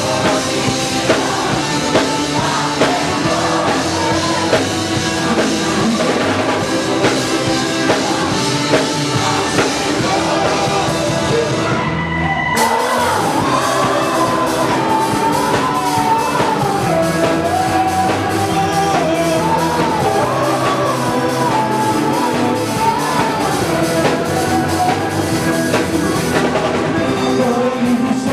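Rock-style worship song played by a full band with drum kit and singing. A little under halfway through the top end briefly drops out, and after that a wavering melody line rides above the band.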